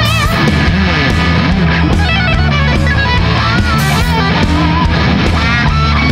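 A rock band plays an instrumental passage with no singing. A lead electric guitar plays a solo line of bent, wavering notes over steady bass and drums with cymbal hits.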